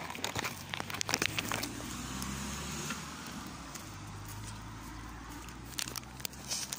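A car engine running with a steady low hum. Crackling and clicks in the first couple of seconds.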